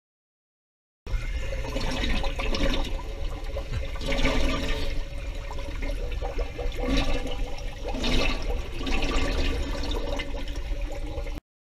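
Underwater air bubbling and gurgling, rising and falling in repeated surges over a steady low rumble. It starts abruptly about a second in and cuts off abruptly near the end.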